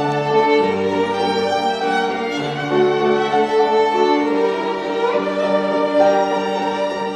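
Chamber music: a violin and a second bowed string instrument playing a slow melody of long held notes over piano accompaniment.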